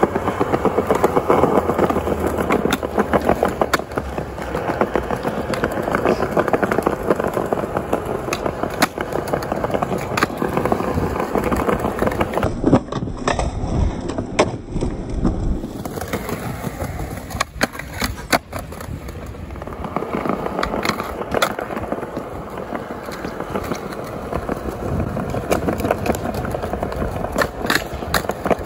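Skateboard wheels rolling over a tiled plaza, rattling across the tile joints, with sharp clacks of the board popping and landing and scraping as the board slides along a round metal rail.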